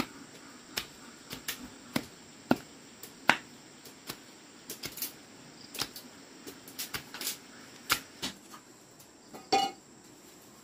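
Irregular sharp cracks and taps of wood, roughly two a second, with a louder, longer one near the end.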